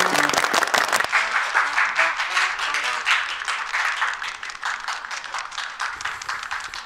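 Audience applause, dense at first and fading gradually, with background music playing under it.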